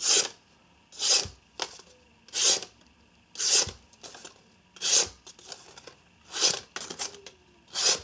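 SOG Mini Trident folding knife's AUS-8 steel blade slicing through a sheet of paper: seven quick slicing strokes, about one a second, each a short hiss. The clean slices are the sign of a sharp edge.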